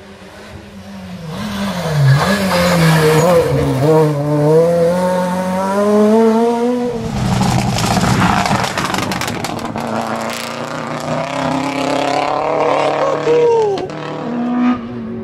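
Rally car engines at full throttle on a tarmac stage, revving up and changing gear several times. About halfway through there is a loud noisy stretch as a car passes close.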